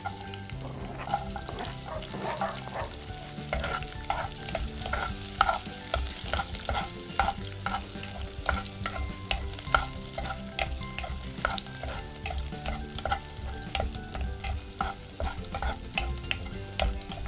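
Chopped garlic sizzling in hot cooking oil in a pot while a metal spoon stirs it. The spoon makes repeated irregular clicks and scrapes against the pot.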